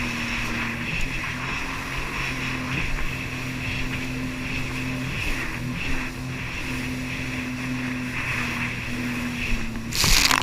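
Jet ski engine running at a steady cruise, its pitch rising and dipping slightly, under a constant hiss of wind and water. There is a brief loud rush of noise near the end.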